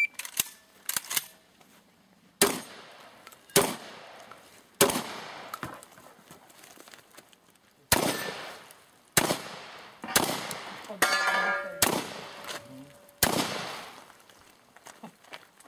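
A shotgun fired about eight times, three shots in quick succession, a short pause, then five more, as a practical-shooting competitor engages a stage. A steel target rings with a metallic clang about eleven seconds in, and a few lighter clicks come in the first second.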